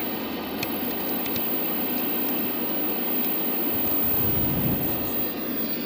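Steady hissing noise with faint scattered ticks, and a short low rumble about four seconds in.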